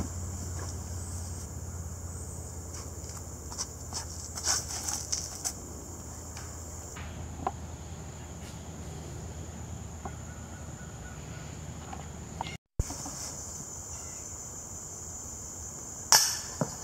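Steady high chirring of insects, with scattered sharp clicks and one louder sharp knock near the end.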